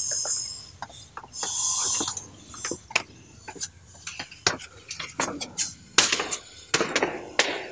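Handling noise from a handheld phone camera: irregular sharp clicks, knocks and short rustles of fingers and clothing against it while going down stone steps. The clicks come thicker and louder in the second half.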